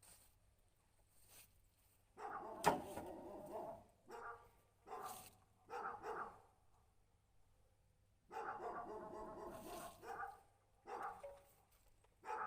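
A dog barking faintly in a series of separate bursts, some short and some drawn out, with quiet gaps between.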